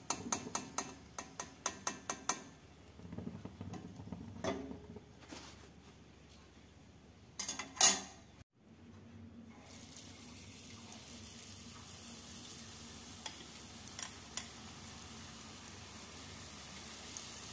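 Deep-frying in a steel kadhai: a quick run of sharp clicks as fried puris are lifted from the hot oil in a wire strainer, and a louder clatter near the middle. Then a steady sizzle of bhaji batter frying in the hot oil.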